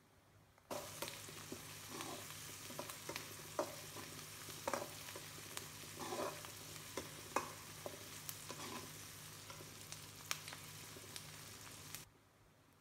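Sliced onions, curry leaves and mustard seeds sizzling in hot oil in a pan while a spatula stirs and scrapes them, with irregular scraping strokes over a steady sizzle. The sound starts suddenly a little under a second in and cuts off suddenly near the end.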